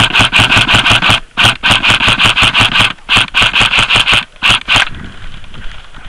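M4-style airsoft rifle firing full-auto in four bursts of rapid, evenly spaced shots, the last burst short. The firing stops about five seconds in.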